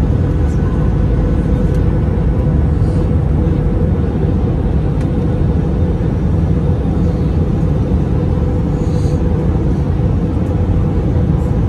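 Cabin noise inside an Airbus A319 on its approach: a steady low rumble of the jet engines and airflow, with a steady hum running through it.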